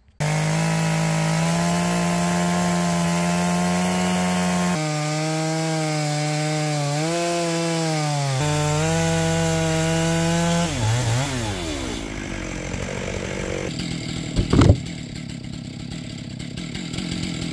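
Large two-stroke chainsaw on a chainsaw mill running flat out through a hard beech log, its pitch dipping and recovering under load. About 11 seconds in the revs fall away, and a quieter, noisier sound follows, with one sharp loud knock near 15 seconds.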